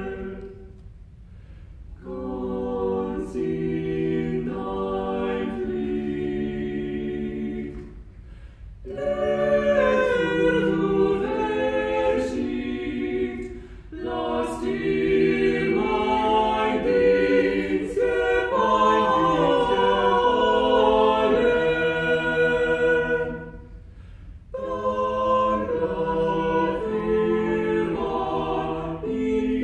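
Unaccompanied vocal quartet (countertenor, mezzo-soprano, tenor and baritone) singing a Renaissance German part-song in four-part harmony, phrase by phrase, with a few short breaks between phrases.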